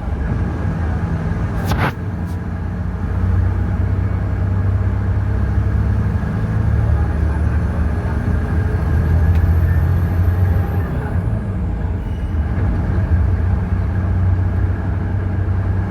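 Ashok Leyland bus diesel engine running under way, with its turbocharger whistling. The high whistle rises slowly from about six seconds in and falls away about five seconds later. A sharp click comes about two seconds in.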